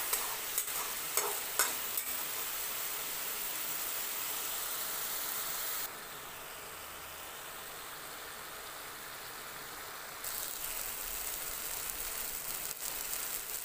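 Grated raw papaya sizzling as it fries in ghee in a kadhai, with a metal spatula clicking and scraping against the pan a few times in the first two seconds. The sizzle drops quieter and duller for about four seconds in the middle, then comes back.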